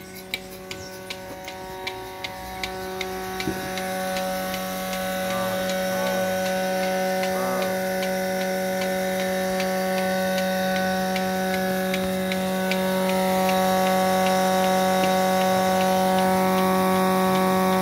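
Milking machine's electric vacuum pump running with a steady hum that grows louder a few seconds in. A regular ticking of about two ticks a second runs over it, plainest near the start.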